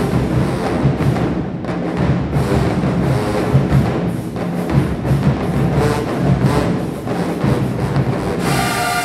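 Marching band drumline playing a loud, driving drum cadence with heavy bass drum hits; the horns come in with a held chord near the end.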